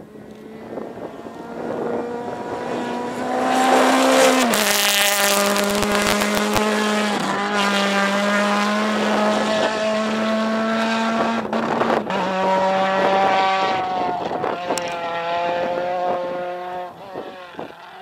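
Rally car engine at high revs as the car drives hard along a gravel stage. It builds up over the first few seconds, holds loud with its pitch stepping down sharply three times, and fades near the end.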